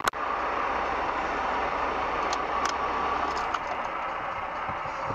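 Steady road and engine noise inside a moving car, picked up by a dashcam microphone, with a sharp click at the start and a few faint ticks.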